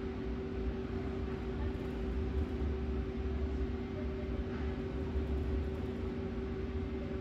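Steady machine hum in a small room: a constant low rumble with two steady humming tones and a soft hiss over it, no change throughout.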